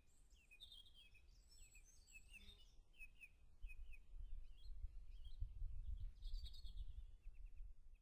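Several songbirds singing and chirping, short quick notes and trills over each other, with a low rumble growing beneath them from about halfway through.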